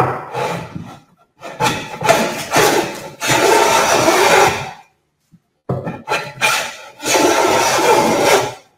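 A long-soled hand plane taking shavings off the edge of a board in rasping strokes, with a short break about halfway through.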